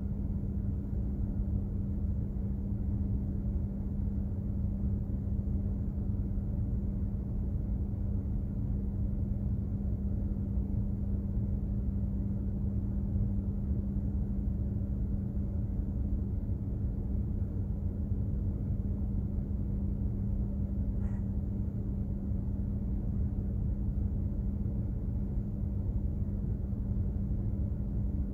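Container ship under way, its engines and machinery giving a steady low rumble with a constant hum. A faint short tick sounds about three-quarters of the way through.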